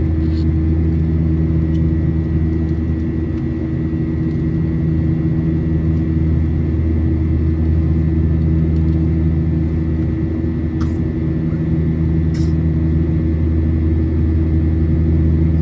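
Steady drone inside the cabin of a Boeing 737-900ER, its CFM56-7B engines running with a deep, even hum, and a few faint clicks about 11 and 12 seconds in.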